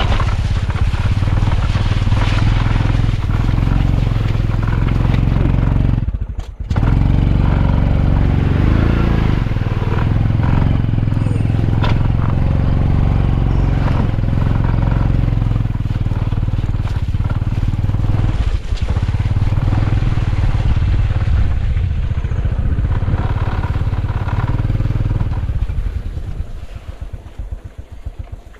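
Motorcycle engine running steadily, with a brief cut about six seconds in. Near the end it drops quieter into a run of evenly spaced firing pulses, like an idle.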